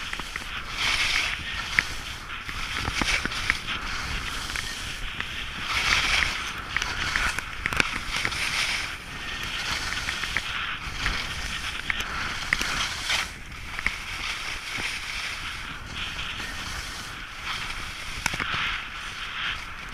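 Skis scraping and hissing over snow on a mogul run, swelling every few seconds with each turn, with scattered sharp clicks.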